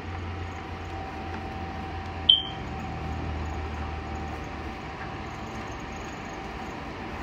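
Steady low hum and hiss, with one short high-pitched chirp about two seconds in.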